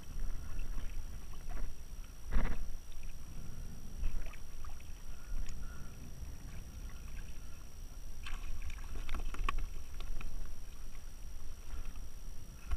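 Water sloshing and splashing against a kayak hull as a hooked Spanish mackerel is worked at the surface alongside, with a knock on the hull about two seconds in and a spell of splashing and knocking around eight to nine seconds in.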